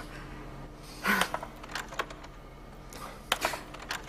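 Quiet room tone with a few scattered light clicks; the clearest comes about a second in and another just past three seconds.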